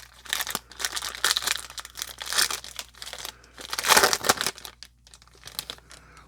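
A pack of baseball cards being torn open, its wrapper crinkling and crackling. The loudest tear comes about four seconds in, after which only faint rustles remain.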